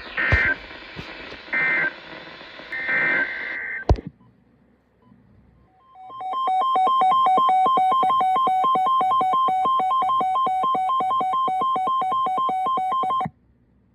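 Emergency alert tones from a weather radio broadcast. Over radio hiss come three short bursts of two-pitched SAME data tones, then after a pause a loud, evenly pulsing two-pitched alert tone that lasts about seven seconds and cuts off suddenly.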